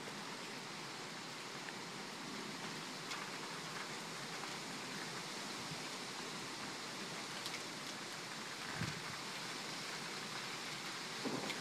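Steady rain falling in a thunderstorm, an even hiss. Near the end a low rumble of thunder begins to build.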